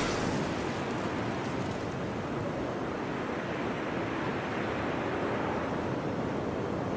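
C-89 smoke grenade burning after ignition, giving off a steady hiss as it vents smoke.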